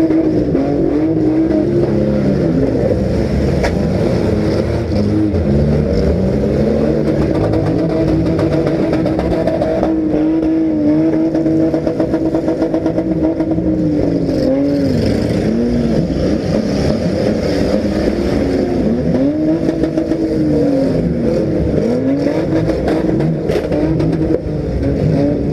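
Compact demolition derby cars' engines revving hard, several at once, their pitch repeatedly dropping and climbing back as the throttle is let off and floored again.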